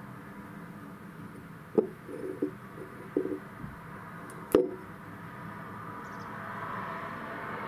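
A cat's paw tapping and scraping against a glass jar: a few soft knocks and two sharp clicks on the glass, the louder one about four and a half seconds in.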